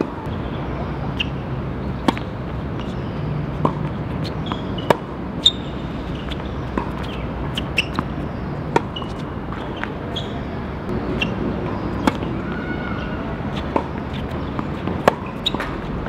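Tennis balls being hit and bouncing: sharp pops at an irregular pace, roughly one a second, over steady background noise.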